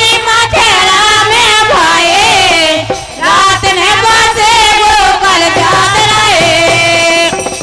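Several women singing a Kartik geet, a Bundeli folk devotional song, together into microphones. The line is held with wavering, ornamented pitch, and the voices stop just before the end.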